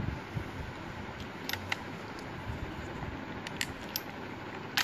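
A few sharp, light metallic clicks from a Crosman SNR357 CO2 revolver airgun being handled after its cylinder has been loaded, the loudest near the end, over a steady background hiss.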